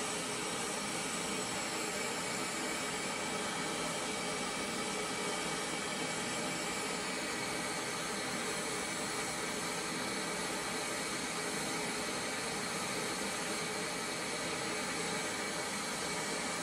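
Steady hiss of a noise test signal played through a Visaton BG20 full-range speaker, used to measure its frequency response live.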